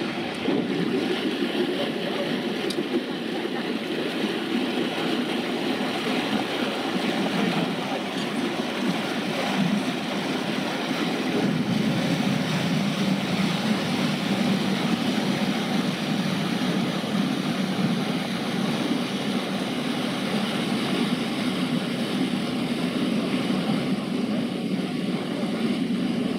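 Narrowboat's inboard engine running steadily as the boat passes below and moves away, with a low rumble and the churn of its propeller wash.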